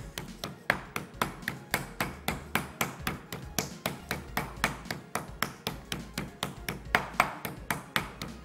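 Meat hammer pounding a raw chicken breast fillet, about four quick, even strikes a second, flattening and tenderizing the meat.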